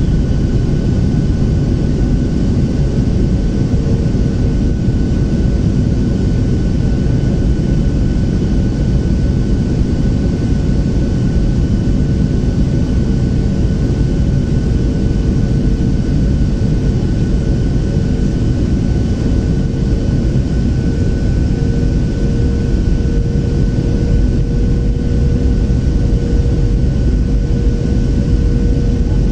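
Cabin noise of a Boeing 737-700 on approach, heard from a window seat over the wing: a loud, steady rumble of airflow and the CFM56-7B turbofan engines, with a steady low hum and a thin high whine over it.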